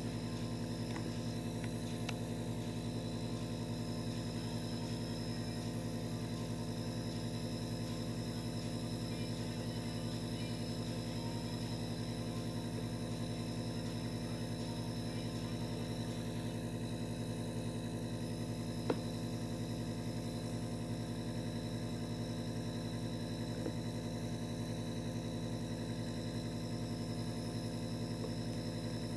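Steady hum made of several fixed tones, unchanging in pitch and level, like a running motor or appliance, with one sharp click about two-thirds of the way through.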